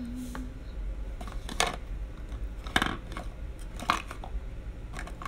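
Three sharp clicks and knocks about a second apart, from makeup products and brushes being handled and set down.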